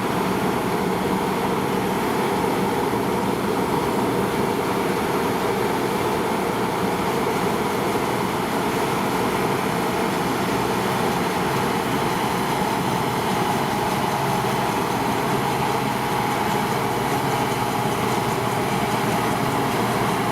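Deutz-Fahr 5690 HTS combine harvester running steadily, its engine and threshing machinery making a continuous, even drone.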